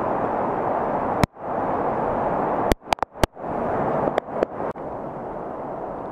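Steady rushing of floodwater and falling rain under a concrete structure. It is broken several times by sharp clicks, each followed by a brief sudden dropout, and is a little quieter after about five seconds.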